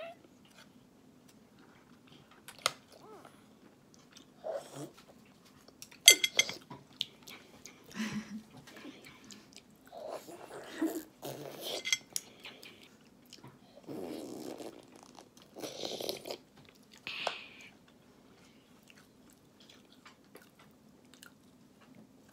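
A child eating a soft meat dumpling: quiet chewing and mouth sounds, with scattered sharp clicks of chopsticks and a spoon against the plate, the loudest about six seconds in. A faint steady hum runs underneath.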